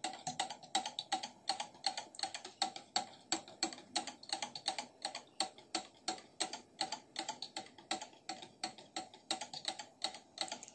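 Wire whisk beating a thick, creamy milk mixture in a glass jug, its wires clicking steadily against the glass about four times a second. Lime juice is being poured in slowly to thicken the milk.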